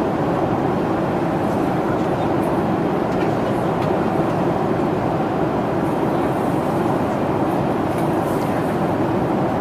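Steady cabin noise of a jet airliner in flight, heard from inside the passenger cabin: an even rush of engine and airflow noise at a constant level.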